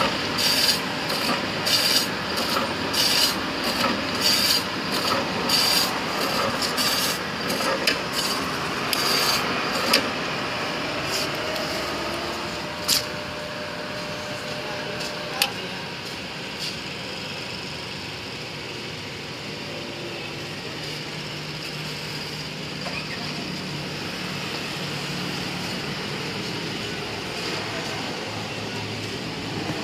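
Automatic frozen-meat slicer shaving frozen pork into curls, a rasping cutting stroke about every three-quarters of a second. After about ten seconds the strokes give way to a quieter, steadier machine noise with a couple of sharp clicks.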